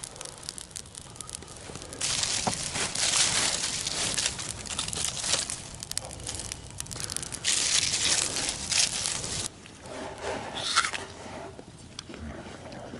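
Small campfire of dry twigs catching, crackling and hissing as sticks are laid on it; the crackling is loudest through the middle and drops off about three-quarters of the way through.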